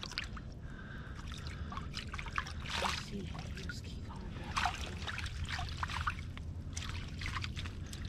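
Water splashing and sloshing in irregular bursts as a netted rainbow trout thrashes in a landing net held in the water.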